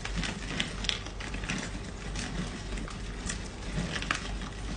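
Crinkling and crackling of a plastic-sleeved strip of banknotes being pulled hand over hand out of a cake, in irregular small crackles.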